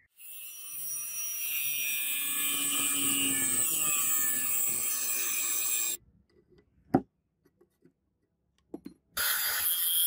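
Angle grinder working a knife blank of spring steel: a steady high whine and hiss for about six seconds, stopping abruptly. About a second later comes one sharp knock and a few light taps, and the grinder starts again near the end.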